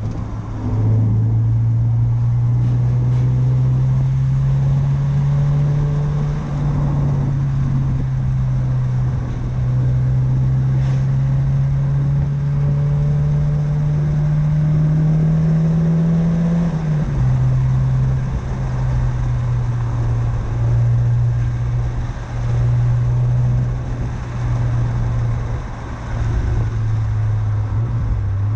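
1993 Mazda MX-5 Miata's 1.6-litre four-cylinder engine, breathing through a Cobalt aftermarket exhaust, running under way. Its pitch climbs slowly for about sixteen seconds, drops suddenly, and then holds lower with small rises and falls.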